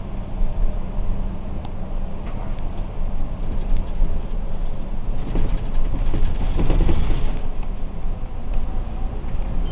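City bus driving along, heard from inside the cabin: a steady low engine and road rumble with scattered rattles and clicks from the bus body. It grows louder and busier for a couple of seconds past the middle.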